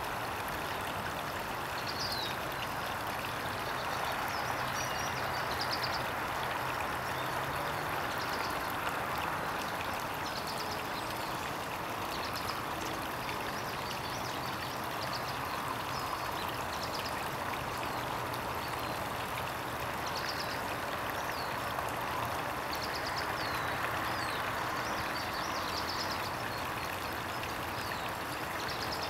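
Steady rushing background noise with faint high-pitched chirps from small birds scattered through it.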